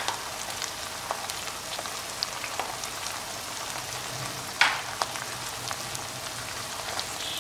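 Onion paste frying in ghee with spice powders piled on it: a steady sizzle and crackle, with a sharp tap a little after halfway.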